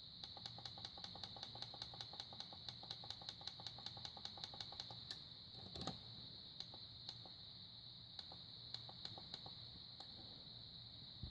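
Faint, rapid clicking of the time-setting buttons on a LEGO minifigure alarm clock, about five or six clicks a second for roughly five seconds, then a few scattered clicks as the time is set back one hour.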